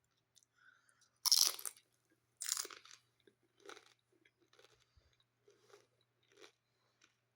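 Two loud crunches of biting into crunchy tortilla chips, about a second apart, then quieter chewing roughly once a second, close to the microphone.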